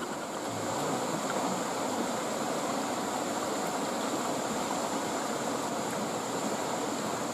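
Small river flowing fast over rocks: a steady, even rushing of water.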